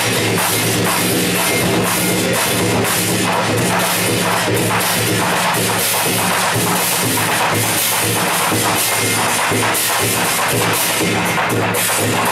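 A drum troupe on large barrel drums plays a fast, steady beat of about four strikes a second, amplified over backing music with a held low note that is strongest in the first half.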